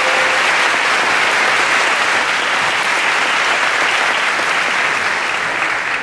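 Audience applauding, a dense, steady clapping that eases slightly in the last second.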